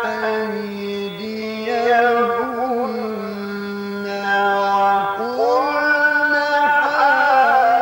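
A man reciting the Quran in the melodic mujawwad style, drawing out long held notes with wavering ornaments. The voice settles on a lower note in the middle, then rises to a higher held note about five seconds in.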